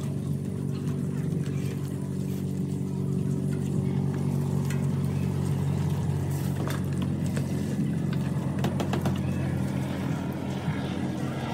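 An engine running with a steady low drone. A few light clinks of pots and utensils are heard around the middle.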